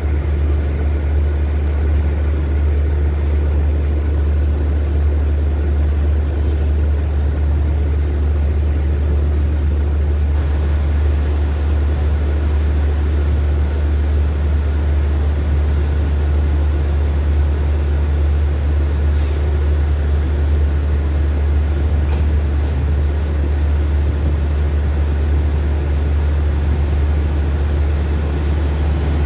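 Steady low rumble of diesel railcar engines running at a station platform, with no marked rise or fall.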